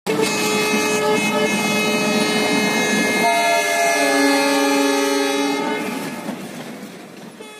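Diesel locomotive horn held in one long steady blast as the train rolls past, with its tones shifting about three seconds in. The horn and train noise fade out near the end.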